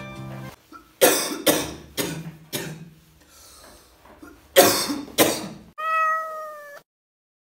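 A man coughing in short loud bursts, four in quick succession, a pause, then two more. These are followed by a steady high tone lasting about a second that cuts off sharply.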